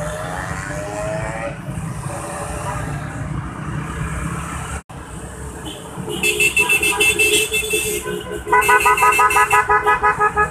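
Scooter horns honked in fast, repeated beeps, several a second, starting about six seconds in: one horn for about two seconds, then a second horn with a different pitch. Before that there is the steady engine, road and wind noise of scooters riding along in a group.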